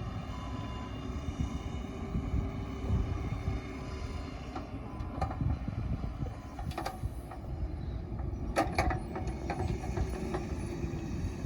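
Heavy earthmoving equipment running with a steady low engine rumble. Several sharp metallic clanks come about halfway through, with a tight cluster of them about three-quarters of the way in.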